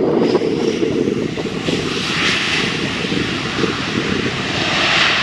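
Boeing 737-900ER's twin jet engines at high power as the airliner speeds along the runway: a steady low rumble with a hissing upper layer that builds from about two seconds in and is loudest near the end.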